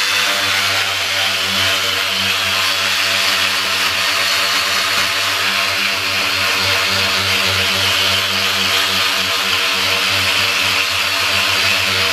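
Corded electric detail sander running steadily against the inside of a Yamaha FZR plastic fairing, sanding down dried JB Weld epoxy: an even motor buzz with a hiss of sanding.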